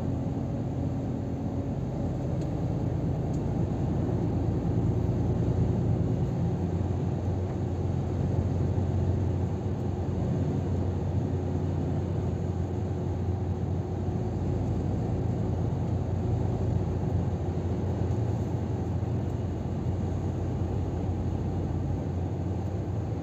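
Steady low drone inside a Scania R500 truck cab at motorway cruising speed: the 13-litre inline-six diesel humming under a constant load, blended with tyre and road noise.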